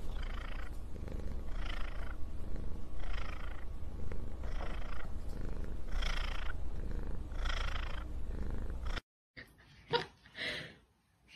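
Domestic cat purring: a steady low rumble with a breathy swell about every second and a half, cutting off abruptly about nine seconds in. A few faint knocks and rubs follow.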